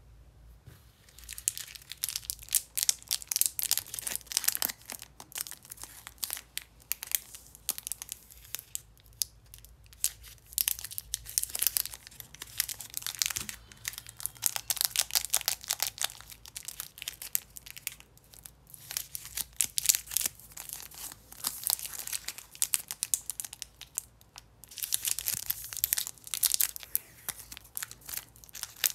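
Plastic chocolate-bar wrappers crinkling and tearing open as they are handled. The dense crackling starts about a second in and pauses briefly a few times.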